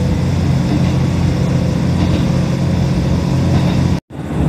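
Steady engine and running noise of a KiHa 75 diesel railcar under way, heard inside the passenger cabin. The sound cuts out for a moment near the end.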